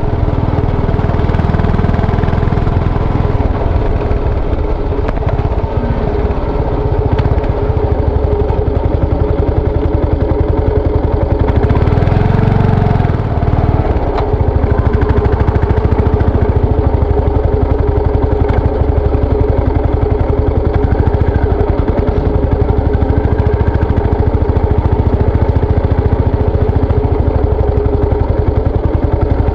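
Yamaha SR400's air-cooled single-cylinder four-stroke engine running steadily, with a low rumble of wind on the microphone that swells briefly about halfway through.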